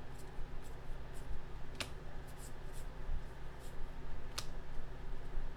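Trading cards being handled and sorted by hand: faint short swishes of cards sliding against one another, with two sharp clicks about two seconds and four and a half seconds in.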